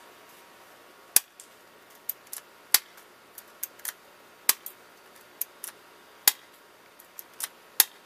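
P.901 spring airsoft pistol being test-fired: five sharp snapping shots, about one every second and a half, with smaller clicks from the gun between them.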